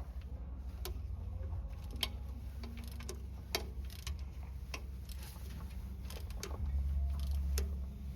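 Scattered sharp metallic clicks and taps from hand tools on a bolt while a carburetor is being fastened down, spaced irregularly a second or more apart, over a steady low hum.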